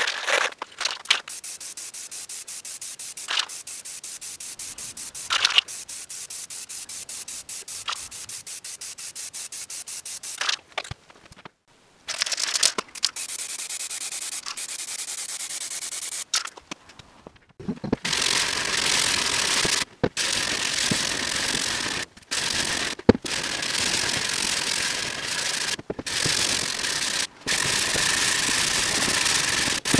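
Aerosol spray can hissing as coats of spray paint and clear lacquer go onto a board, the later passes in loud bursts of a second or two with short breaks between. For the first ten seconds a fast, even run of ticks sits under the hiss.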